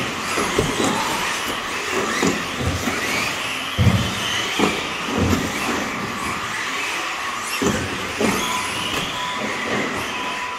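Schumacher Cat L1 electric RC buggy's brushless motor whining, rising and falling in pitch as it speeds up and slows down, holding a steady pitch near the end. Several dull thumps come through it.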